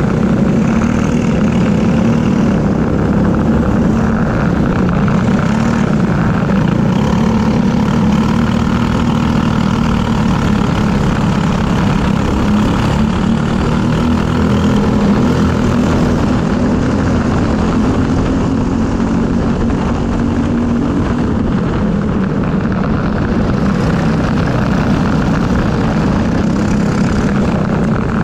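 Briggs & Stratton LO206 single-cylinder four-stroke kart engine running hard at race pace, heard from on board the kart. Its note rises and falls gently with the revs through the corners.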